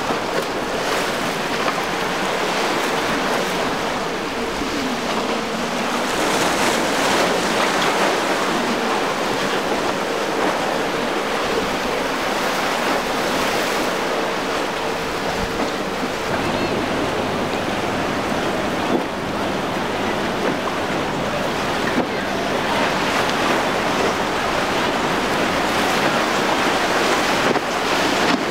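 Rushing waves and wind noise on the microphone, with a center-console boat's Suzuki 150 hp outboard motor running steadily as it crosses choppy inlet water.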